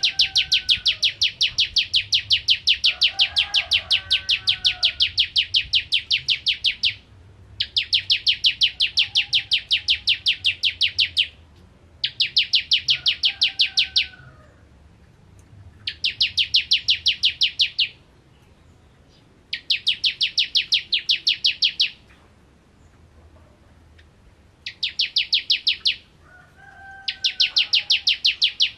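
Ciblek kristal, a small caged prinia, singing its rapid-fire 'nembak' song: long strings of fast, even, high notes, about ten a second, in bouts of two to seven seconds with short pauses between. Fainter, lower chirps come in now and then.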